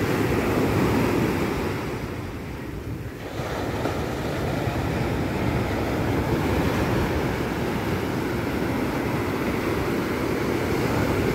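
Sea waves washing in, with wind buffeting the microphone; the rush eases briefly about two seconds in.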